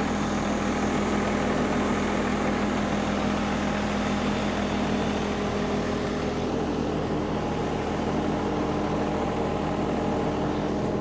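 The feed mixer wagon's engine idling steadily, a constant low drone, while its jammed silage cutter stands still.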